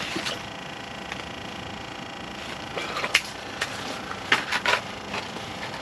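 Several short knocks and rustles from handling, in two clusters about three seconds in and again around four and a half seconds in, over a steady hum with faint steady tones.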